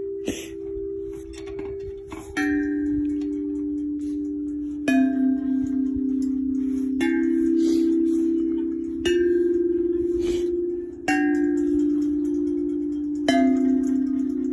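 Hollow metal chime tubes tapped lightly one at a time, six strikes about two seconds apart, each ringing on at a different pitch so the tones overlap like slow chimes.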